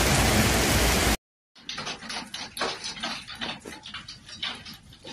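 A heavy hail shower pelting down on pavement, a dense, steady rush that cuts off abruptly about a second in. After a short silence, hailstones fall more sparsely, heard as a quieter, irregular scatter of sharp ticks and knocks.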